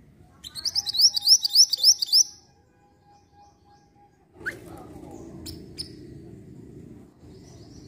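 Minivet (mantenan) calling: a quick run of about eight high, rising chirps over about two seconds. A few sharp clicks and a low rumble follow.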